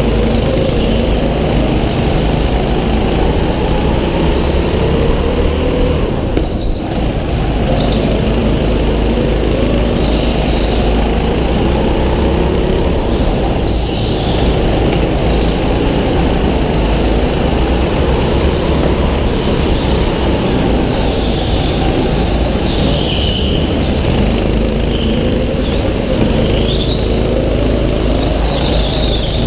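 A go-kart's small engine running hard at racing speed, with the tyres squealing briefly several times through the corners.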